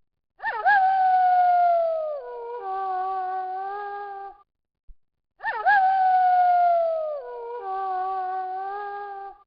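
Wolf howling: a call that flicks up sharply, holds, then slides down, followed by a second, steadier howl. The same pair of howls repeats identically about five seconds later, a looped recording.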